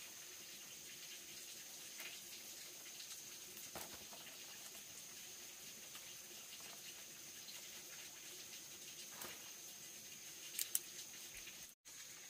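Thin bamboo strips ticking and rustling faintly as they are handled and woven into a flat mat by hand, with two sharper clicks near the end. The sound cuts out briefly just before the end.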